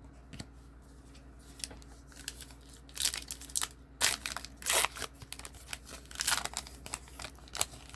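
Trading-card pack wrapper crinkling and tearing, with cards rustling, in sharp irregular bursts from about three seconds in.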